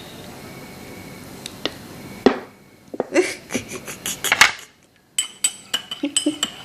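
A metal spoon knocking and scraping in a drinking glass, then stirring with quick ringing clinks, about three a second, near the end.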